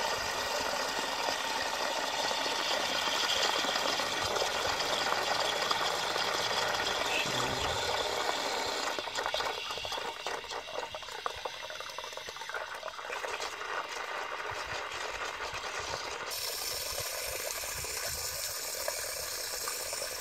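Water running into an open cast-iron high-level cistern through its float valve as the tank refills, a steady rush of water that drops in level and loses its deeper part about nine seconds in. The float valve is one the owner thinks is on its way out.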